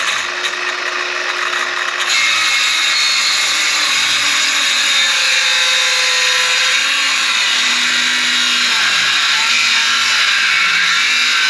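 Electric power saw running and cutting a 2x4, a steady loud whine that gets louder about two seconds in.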